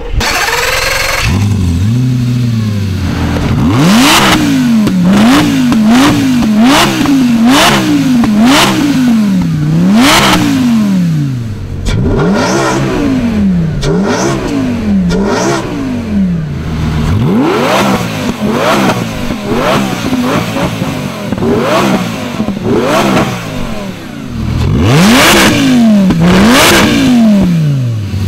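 Lamborghini Gallardo's V10 engine just after start-up: a high flare settling to idle, then many quick throttle blips in clusters, the exhaust note rising and dropping each time. Near the end it is held at high revs for about three seconds, then falls back.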